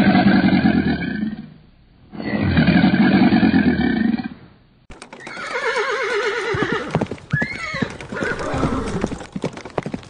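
Two long, deep alligator bellows, each lasting about two seconds. From about five seconds in, a horse whinnies with a wavering call that falls in pitch, gives a shorter rising-and-falling whinny, and hooves clop against the ground.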